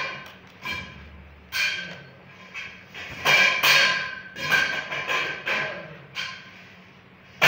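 Knocks and scrabbling against a plastic basin, with plastic balls bumping together, in a series of short bursts, as a kitten plays inside it.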